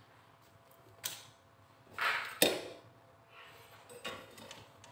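Tools being handled and set down: a light knock about a second in, then a brief scrape and a sharp knock around two and a half seconds in, with fainter clicks near the end.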